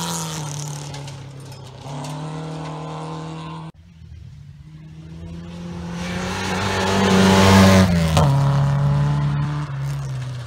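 Classic rally cars' engines at full throttle on a gravel stage. One car's engine note steps down and then up as it shifts gear. After an abrupt cut, another car approaches, growing steadily louder, and passes about eight seconds in, its engine note dropping as it goes by.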